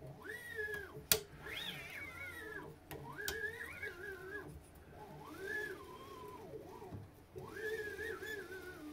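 Voron 2.4 toolhead carriage pushed back and forth by hand along its gantry, back-driving the A and B stepper motors through the belts. Each stroke gives a whine that rises, holds and falls in pitch with the hand's speed, about six in all, with one sharp click about a second in.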